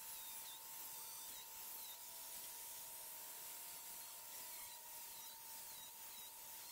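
DeWalt angle grinder with a cutting wheel cutting through expanded steel mesh, heard faintly as a steady whine with an abrasive hiss.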